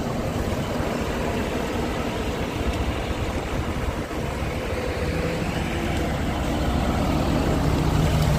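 Ford F250's 6.7-litre turbo diesel idling steadily, its low hum growing a little louder near the end.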